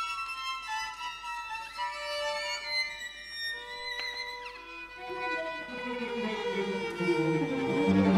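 String quartet of two violins, viola and cello playing contemporary music: quiet, held high violin notes with a brief slide, then lower parts entering in stepping-down notes from about halfway, the sound growing louder near the end.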